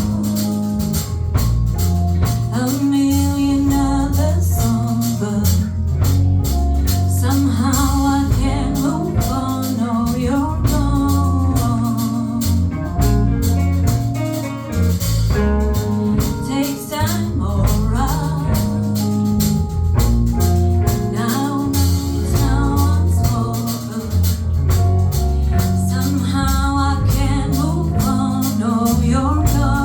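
Live band playing a song, with a singer over bass, drums and percussion.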